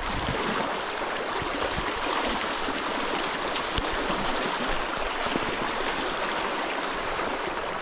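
Fast creek current rushing over a shallow riffle: a steady, even rush of water, with a single faint click about four seconds in.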